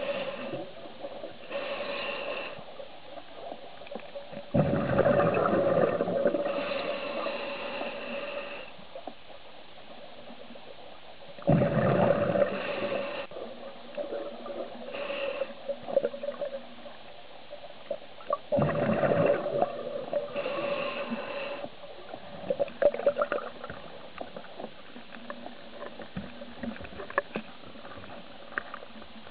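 A scuba diver breathing through a regulator underwater: three slow breath cycles about seven seconds apart, each a sudden loud rush of breath and exhaled bubbles that fades away, with faint bubble crackles in between.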